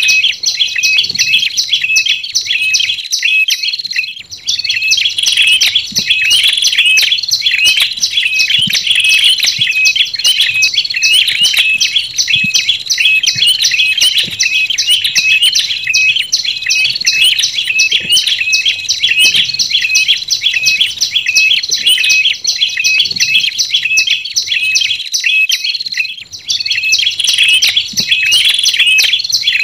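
Tailorbirds (prenjak lumut with red-headed prenjak) calling in a bird-lure recording: fast, continuous high-pitched chirping, broken by two short pauses.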